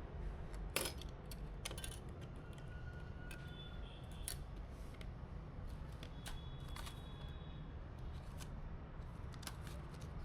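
Scattered small clicks and taps of computer parts being handled during a PC build, over a steady low hum; the sharpest click comes about a second in.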